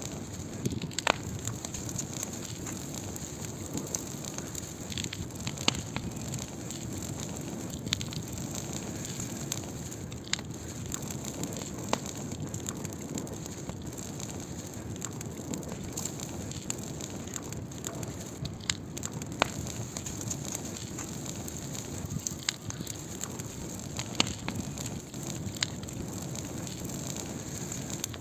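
Wood fire burning with a steady soft hiss and sharp crackles and pops every second or two.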